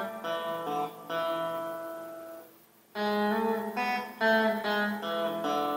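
Guitar being played, heard through an action camera's built-in microphone. Picked notes and chords ring out and fade, there is a short pause about two and a half seconds in, and then several more chords are struck.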